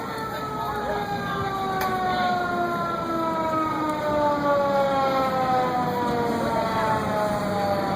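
Fire truck siren winding down: a single tone that falls slowly and steadily in pitch, over a low vehicle rumble.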